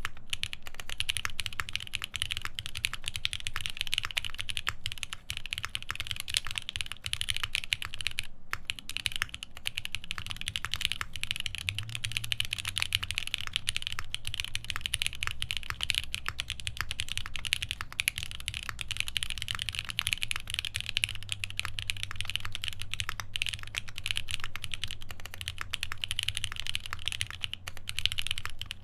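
Continuous typing on a custom Palmetto prototype mechanical keyboard with lubed Alpaca v2 linear switches, a half FR4 plate and GMK keycaps: a dense, steady stream of keystroke clacks.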